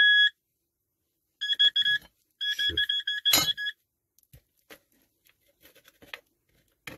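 Handheld pinpointer metal detector beeping: a short steady tone at the start, another about a second and a half in, then fast pulsing beeps for about a second as it is passed over the spot, signalling metal in the grave fill. A sharp knock falls in the middle of the pulsing, and faint scraping clicks follow.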